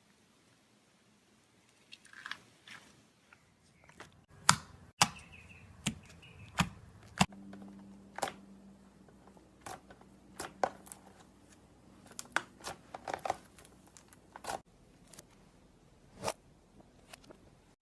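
Slime being handled by hand, making irregular sharp clicks and pops that start about two seconds in and are loudest a few seconds later.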